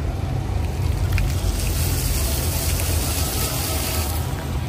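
Ground-level plaza fountain jets spraying and splashing onto wet paving: a hiss that swells about a second and a half in and drops away near the end, over a steady low rumble.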